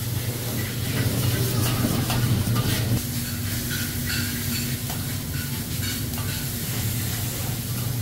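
Fried rice stir-frying on a teppanyaki griddle: a metal spatula scrapes and taps across the hot steel plate over the sizzle of the rice. A steady low hum runs underneath.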